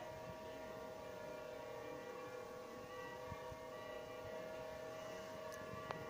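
Monastery church bells ringing, a steady blend of several overlapping tones that hang on without a clear new strike.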